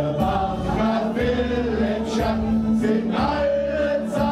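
A man singing into a hand-held microphone over amplified party music with a steady bass line, other voices singing along with him.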